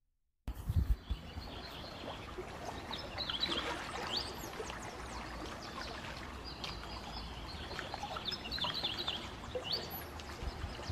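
Small waves lapping and trickling over a pebble shore, with birds chirping repeatedly over it. The sound starts about half a second in.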